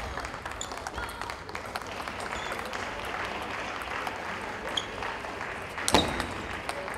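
Spectator applause, a steady patter of clapping between table tennis points, with one sharp knock about six seconds in.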